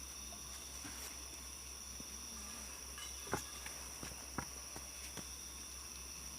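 A steady high-pitched drone of night insects chirring, with a few short soft clicks around the middle.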